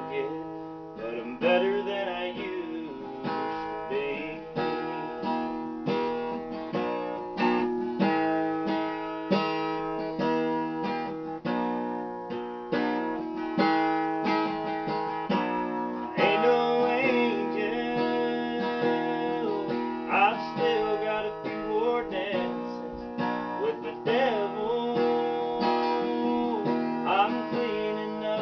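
Acoustic guitar strummed steadily, chords rung out in a continuous rhythmic pattern. A man's voice sings or hums along softly at times.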